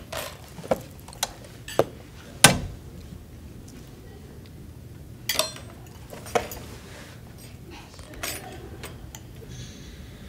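Cutlery and dishes clinking and knocking on plates and trays: a string of separate sharp clacks, the loudest about two and a half seconds in, with more spread out over the rest.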